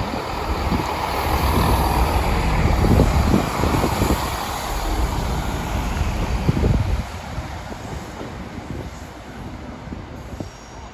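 A train running through the station, a loud rumble loudest about three seconds in that drops away sharply about seven seconds in, with wind buffeting the microphone.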